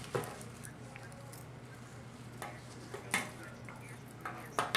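A handful of sharp clicks and light clinks of small hard objects being handled, scattered over a few seconds, two of them close together near the end, over a low steady hum.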